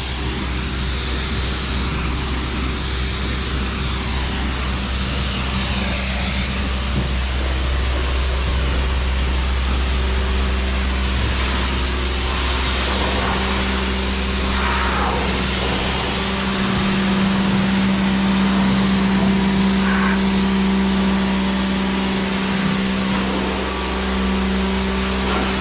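Karcher electric pressure washer running with a steady motor hum under the hiss of its high-pressure water spray, the hum growing stronger about two-thirds of the way through.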